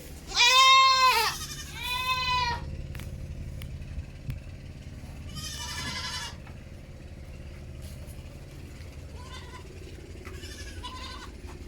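Goats bleating: two loud bleats in the first few seconds, another about five seconds in, and fainter ones near the end.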